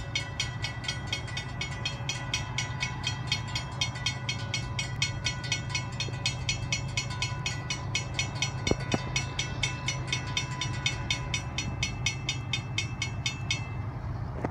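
Railroad crossing bells ringing rapidly, about four strikes a second, while the crossing gates come down. The ringing stops suddenly near the end, once the gates are down. A steady low hum runs underneath.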